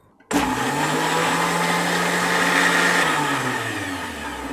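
Electric kitchen blender switched on, its motor starting abruptly and running at full speed as it grinds soaked tamarind in water into pulp. Near the end it is switched off and winds down, its pitch falling.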